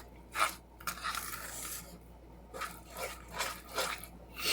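Thick oat-flour cake batter being stirred by hand, an uneven run of scraping strokes against the side of the dish.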